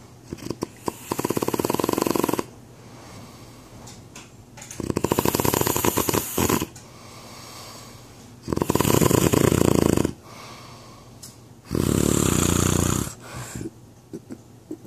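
A man snoring in his sleep: four loud, rattling snores a few seconds apart, with quiet breathing between them.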